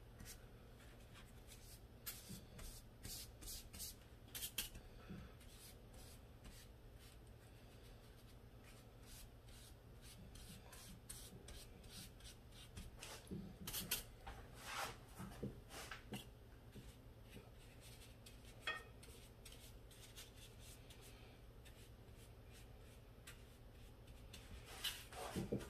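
Faint brushing and rubbing of a wide flat brush laying a watered-down watercolour wash across paper, with scattered short scrapes and light taps.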